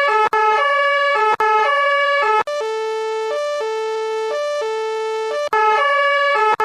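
Toy fire truck's electronic two-tone siren, stepping back and forth between a high and a low note. It alternates quickly at first, slower and softer in the middle, then quickly again near the end.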